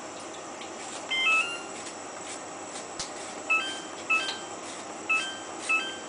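Samsung WF8804 washing machine's control panel beeping as its buttons are pressed to change the rinse count and spin speed: five short two-note electronic beeps, one about a second in and the rest in two pairs over the last two and a half seconds.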